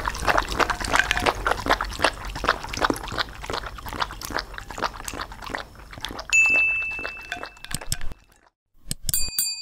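Two dogs licking and chewing food from plates, a rapid run of wet smacking clicks. About six seconds in, a bell-like ding rings for over a second, and near the end a click and a second chime sound as a subscribe animation plays.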